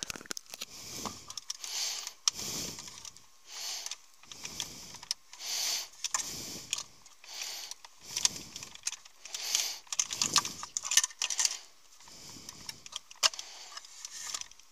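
Hands working a plastic wiring-harness connector and its release tab behind the dashboard panel: irregular rattling, rustling and sharp plastic clicks.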